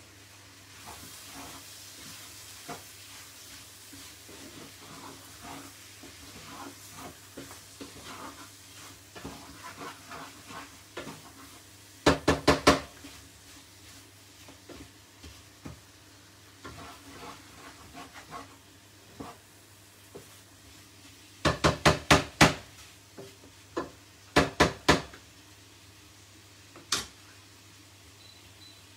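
Chicken and peppers frying softly in a pan while a wooden spatula stirs and scrapes them. Several loud clusters of sharp knocks, about halfway and again near the end, as the wooden spatula strikes the pan.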